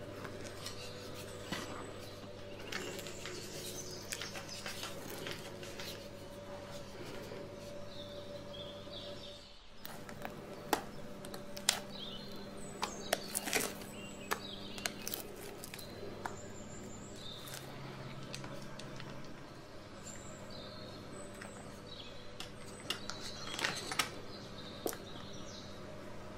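Silicone spatula stirring flour into cake batter in a glass bowl, with soft scraping. About ten seconds in this gives way to batter being scraped into a paper-lined metal cake tin, with scattered sharp clicks and taps of the spatula against the tin.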